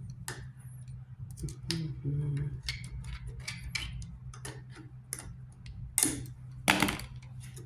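Metal parts of a Mack power divider being worked by hand, giving irregular light clicks and taps, with two louder knocks near the end. A steady low hum runs underneath.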